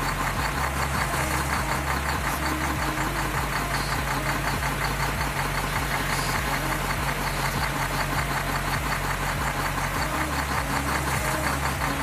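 An engine-like sound running steadily with a fast knocking rhythm and a low hum that shifts in pitch every second or so.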